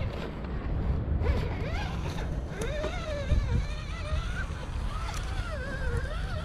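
Scale RC crawler truck's electric motor and gears whining as it crawls over rocks, the pitch rising and falling with the throttle. Low wind rumble on the microphone underneath.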